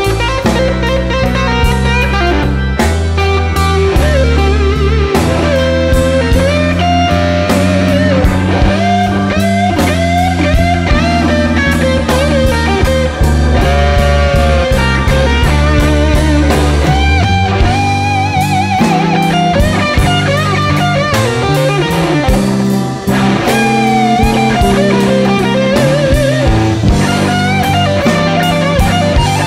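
Background music: blues-rock with electric guitar playing bent, wavering lead notes over bass and drums.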